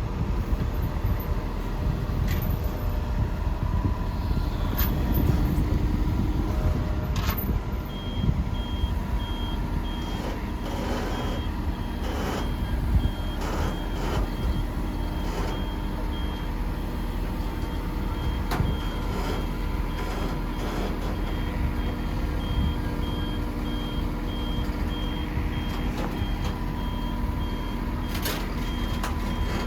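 Backup alarm on heavy equipment beeping in a steady series from about eight seconds in, over a diesel engine running at idle, with scattered knocks and clanks.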